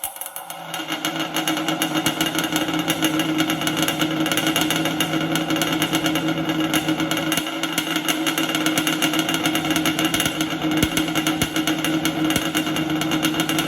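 Yamaha Banshee's twin-cylinder two-stroke engine running steadily with a dense, rattly run of firing pulses, coming up in level over the first second.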